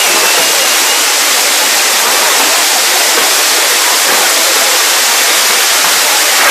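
Loud, steady hiss of fireworks fountains and spinning wheels burning on a set-piece frame, spraying sparks without separate bangs.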